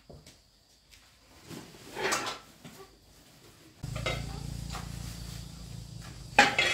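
Kitchenware clattering: a brief rattle, then a sharp, loud clank near the end. A steady low hum comes in about four seconds in.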